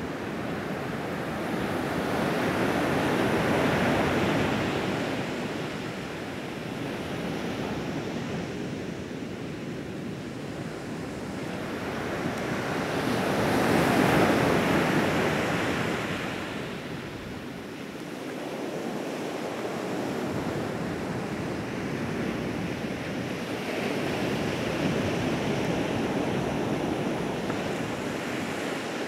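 Ocean surf breaking on the shore: a continuous rush of white water that swells and fades as each set of waves comes in, loudest three times, with the biggest swell in the middle.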